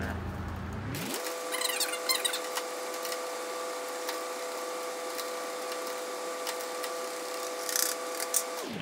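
A steady mechanical hum with a few held tones, with brief scratchy rustling about a second in and again near the end as sand slides out of a foil pan into a funnel.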